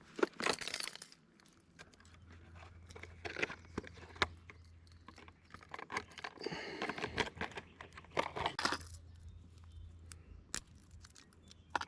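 Close handling noise: bursts of rustling and crinkling with scattered sharp clicks and light rattles, over a low steady hum from about two seconds in until near the end.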